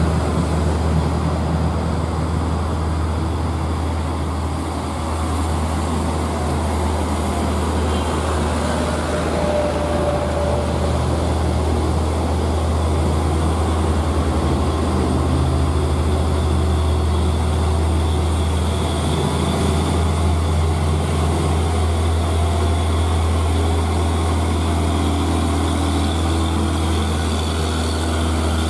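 Loaded Hino 500 dump truck's diesel engine labouring steadily under load as the truck crawls up a steep climb.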